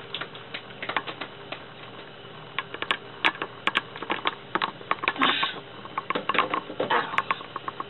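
A small handful of people clapping: scattered, irregular claps rather than a dense round of applause.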